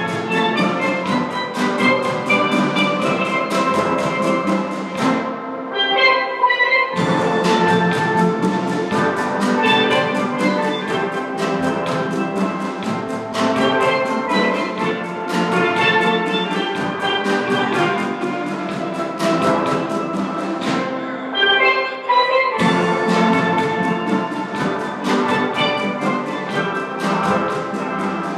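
Steel drum band playing a tune: many steelpans struck in a steady rhythm, layered melody and chords over bass pans. Twice, about five seconds in and again past twenty seconds, the lower parts drop out for a second or so, leaving a few high pans playing alone.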